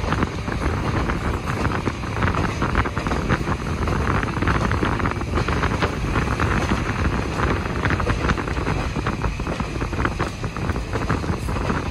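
KiHa 40 diesel railcar running, heard from inside the car at an open window: steady engine and wheel-on-rail noise with scattered small clicks, under rushing wind.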